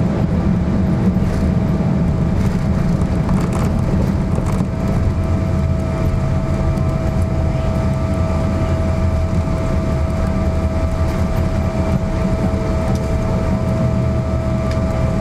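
Cabin noise of a Boeing 777-300ER on its landing roll: the GE90 engines and the landing gear on the runway make a loud, steady rumble with a steady whine over it. About five seconds in, the rumble drops lower as the plane slows.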